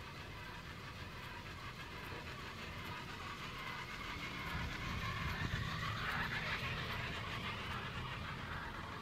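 Chairlift running: the haul cable and the chair's grip rumble and hiss over a lift tower's sheave wheels as the chair passes the tower. The sound swells about five to seven seconds in, then eases off.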